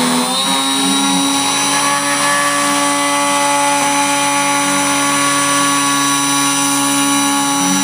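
CNC router spindle driven by a brushless DC RC airplane motor, running with a steady high whine while its bit cuts a gear outline in wood. Its pitch steps up slightly just after the start.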